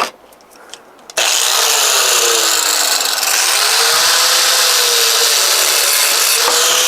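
Angle grinder starting up about a second in and cutting through the rubber of an old scooter tire. The motor's pitch sags and recovers as the disc bites.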